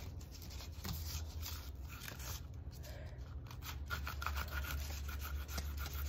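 Small kitchen knife cutting through a raw apple: faint, irregular scratchy rubbing and scraping strokes as the blade works through the skin and flesh, over a low steady hum.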